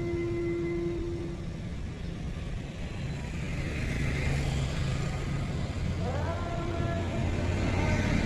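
Road traffic, with motorcycle engines running as they approach. About six seconds in, one engine's note rises in pitch and then holds as the motorcycle speeds up.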